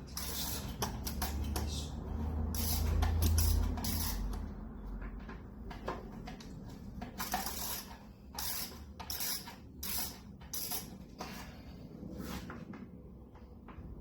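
Socket wrench on an extension undoing the housing bolts of a pool pump: irregular metallic clicks, scrapes and knocks, with a low rumble about two to four seconds in.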